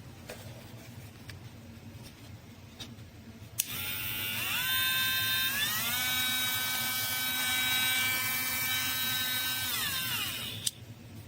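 Electric corded micro engraver (rotary etching pen) switched on with a click, its motor whine rising in pitch in two steps as it speeds up and holding steady for about four seconds. It then falls in pitch as it winds down and is switched off with a click near the end.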